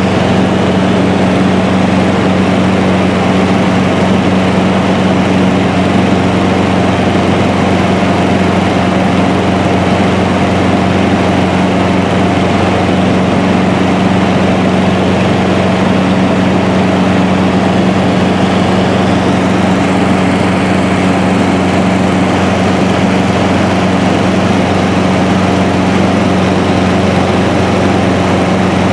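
Light aircraft's engine and propeller running steadily at cruise, heard inside the cabin as a loud, constant low hum over a wash of noise.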